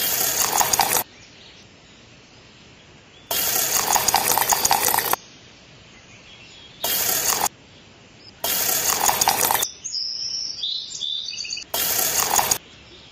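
Five short bursts of a dubbed-in noisy sound effect, each switched on and off abruptly. Faint bird chirps come in the quiet gaps, most clearly near the end.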